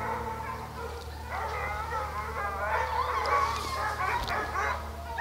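A pack of deer hounds in full cry on a deer's track, many overlapping baying and howling voices, growing louder from about a second in.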